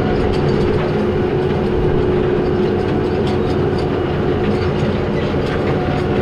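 Tractor engine running steadily under load while ploughing, with one steady whining tone over the drone and faint scattered clicks and rattles.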